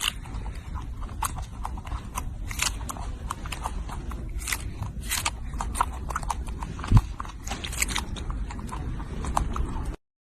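A monkey chewing and biting into food, a run of short crunchy crackles over a low rumble, with one heavier thump about seven seconds in. The sound cuts off abruptly just before the end.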